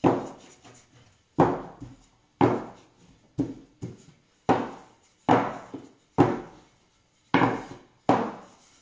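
Wooden rolling pin worked back and forth over a sheet of pasta dough on a wooden pastry board. It gives a sharp wooden knock on each stroke, about one a second, each fading quickly.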